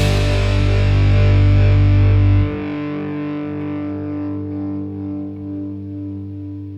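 Rock band's last chord ringing out on distorted electric guitar after the band stops. The bass drops out about two and a half seconds in, and the guitar chord slowly fades.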